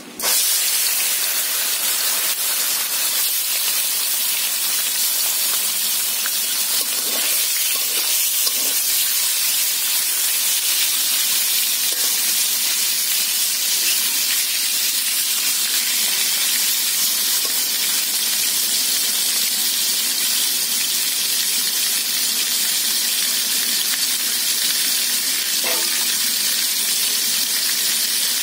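Pieces of taki (spotted snakehead) fish coated in turmeric and salt frying in hot oil in a wok. The loud, steady sizzle starts suddenly just as the fish go into the oil.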